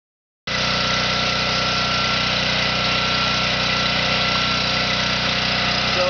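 Portable generator's small petrol engine running steadily at a constant speed.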